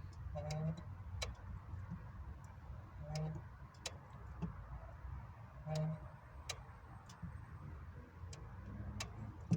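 Renault Mégane IV clutch noise with the engine running: a short low tone, then a sharp click, repeating about every two and a half seconds as the clutch is worked. The noise has survived two clutch replacements, and its cause is unknown.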